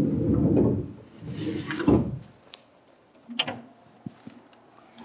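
Seibu 2000 series commuter train's sliding passenger doors running along their tracks and shutting with a thump about two seconds in, followed by a few light clicks.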